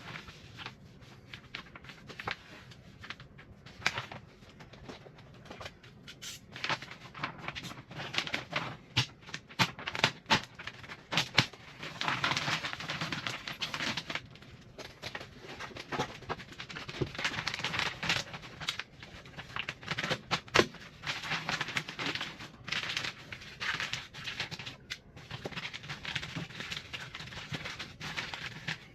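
Insulation and plastic vapour-barrier sheeting being handled and pushed back into place: crinkling and rustling with many irregular clicks and taps, busiest about halfway through.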